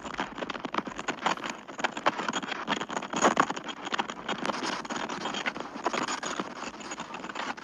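A room shaking in a strong earthquake: household objects rattling and knocking together in a dense, irregular clatter, with a louder knock about three seconds in.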